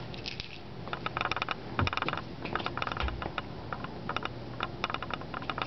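A thrown cat toy rattling and clicking as it bounces and rolls along the hall and the cat bats at it: quick irregular runs of light clicks, with a couple of soft thuds around two and three seconds in.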